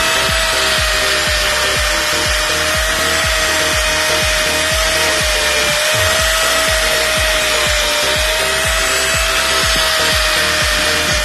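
Handheld electric angle grinder running with a steady whine that wavers slightly, its disc grinding rust and paint off a steel motorcycle side stand.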